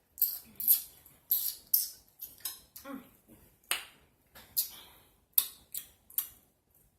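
Close-miked eating: chewing and lip smacking, heard as short, sharp, irregular clicks, about two or three a second.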